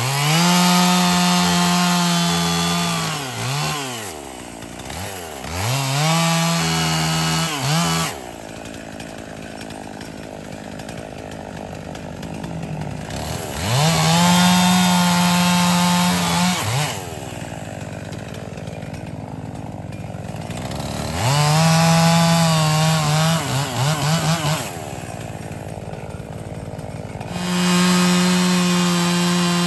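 Gasoline chainsaw cutting up downed wood, revved to full throttle five times for two to three seconds each and dropping back to idle in between. A few quick throttle blips come just before the fourth burst ends.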